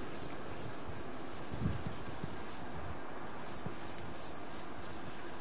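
Chalk writing on a blackboard: faint scratches and taps over a steady hum of room noise, with a soft low thump about a second and a half in.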